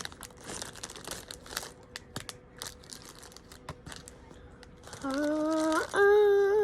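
Plastic bags crinkling and small plastic Lego pieces clicking as they are rummaged through. About five seconds in, a long held voice-like note starts, stepping up in pitch a second later and growing louder.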